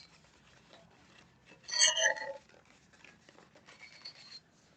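A cardboard product box being opened and the product slid out: one short scraping crinkle about two seconds in, then faint rustling of the packaging.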